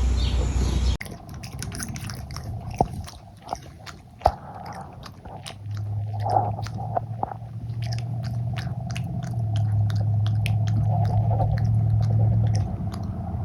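A cat chewing and crunching food: a rapid, irregular run of crisp clicks. A low steady hum joins in from about six seconds in and stops shortly before the end.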